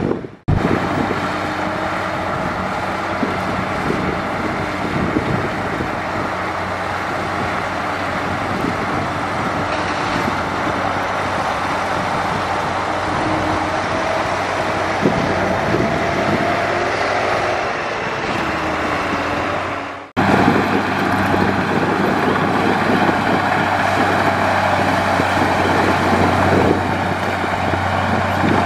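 Heavy diesel earthmoving machinery running steadily under load, with a constant low engine hum. The sound cuts out abruptly twice, once near the start and once about two-thirds of the way through.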